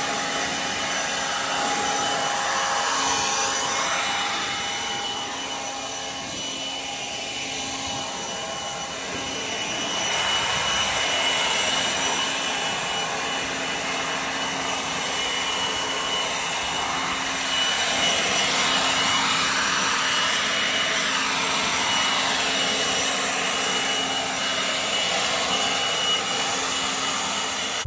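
Cordless leaf blower running steadily, a rush of air with a whine through it, blasting leaves and mulch across the ground. It eases slightly for a few seconds about a quarter of the way in, then comes back up.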